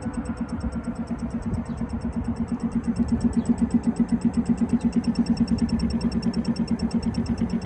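Electronic key-cutting machine running, its spindle motor whirring as the cutter mills a new Nissan key blade held in the clamp, with a fast, even pulsing of about eight beats a second.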